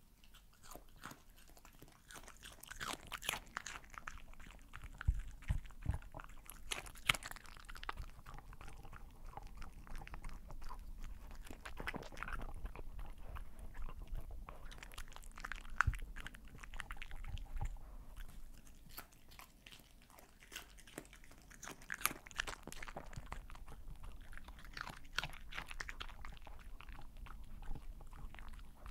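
Close-miked dog eating sweet potato, black beans and cheese off a tabletop: chewing and licking, heard as a dense, irregular run of small clicks and crunches.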